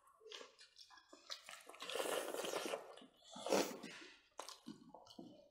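Close-miked chewing and mouth sounds of people eating smoked pork ribs and rice by hand, with two louder noisy stretches about two seconds and three and a half seconds in.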